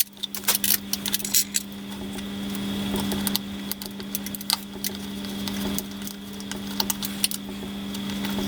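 Scattered light clicks and clinks of small metal parts and tools being handled, over a steady low hum.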